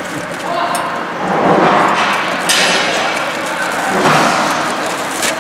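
Flexible aluminium foil duct crinkling and rustling as it is handled and squeezed, in uneven swells, with a few knocks.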